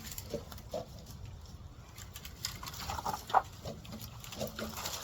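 Brush and branches rustling and crackling as they are cut and handled, with scattered short snaps of twigs, the loudest about three and a half seconds in.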